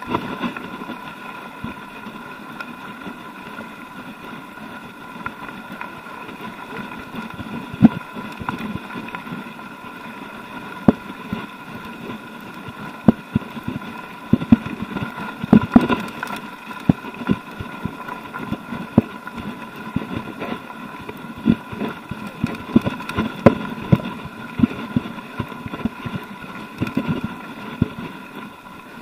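Mountain bike rolling fast over a loose gravel track: tyres crunching on the stones with frequent sharp knocks and rattles from the bumps, over a steady high whir.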